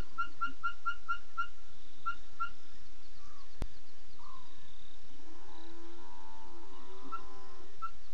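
Night bush sounds: a fast series of short high pips, about four a second, that stops about two and a half seconds in. Near the end comes a drawn-out wavering animal call that swoops up and down several times.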